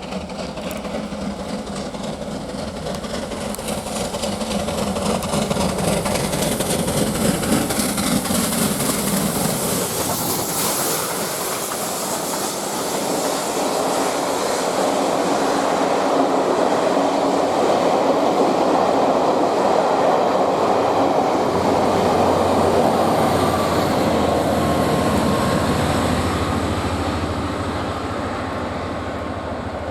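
Bulleid Battle of Britain class steam locomotive 34067 Tangmere passing at speed with its train. The sound builds over the first few seconds as the engine comes by, then the carriages run past on the rails, fading away near the end.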